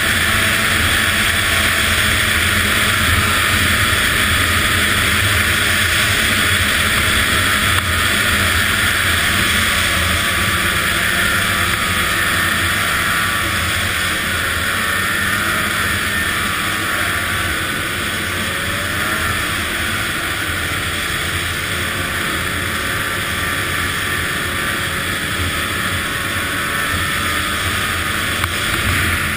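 Arctic Cat ZR800 snowmobile's two-stroke twin engine running steadily under way, its pitch wavering slightly with throttle.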